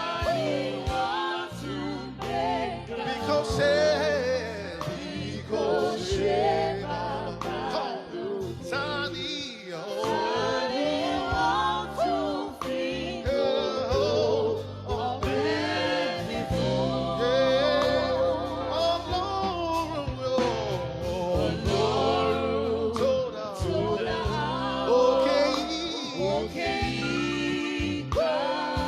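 Gospel worship song: singing with wavering, sustained melodic lines over steady instrumental accompaniment with held low notes.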